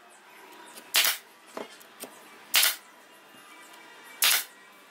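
Pneumatic nail gun firing three shots into pallet wood, about a second and a half apart, with a couple of fainter clicks between them. Light background music underneath.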